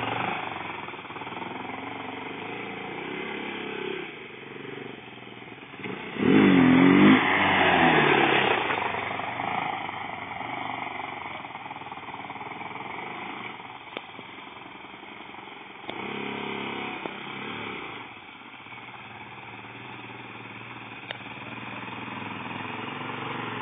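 Quad bike engine revving while climbing a rocky dirt slope, with a loud burst of rising and falling revs about six seconds in. It then runs fainter as the quad moves off and grows louder again near the end as it comes back toward the listener.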